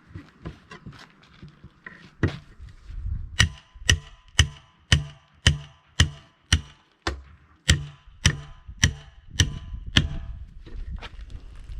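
A hammer striking a steel split wheel rim, about a dozen ringing metallic blows at roughly two a second with a short break in the middle, after lighter knocks. The blows are working round the rim to break the tyre bead free where it has rusted onto the rim.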